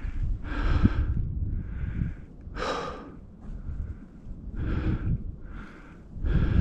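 A person breathing hard and heavily, with loud breaths in and out about once a second over a low rumble.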